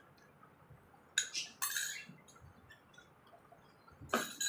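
A few short scraping and clinking sounds from a nearly empty dinner plate being handled and wiped clean, about a second in and again near the end.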